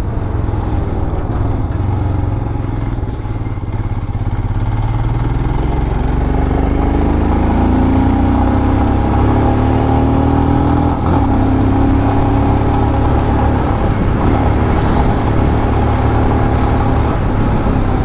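Motorcycle engine running under way, its pitch climbing from about six seconds in as the bike picks up speed, then holding steady. The rider complains that the bike is losing pickup.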